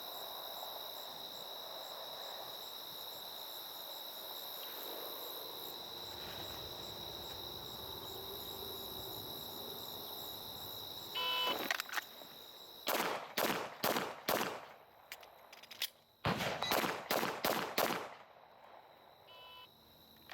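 Steady cricket chirping, then a short electronic beep. Then a handgun fires four quick shots about half a second apart, pauses about a second and a half for a magazine reload, and fires four more quick shots. Another short beep comes near the end.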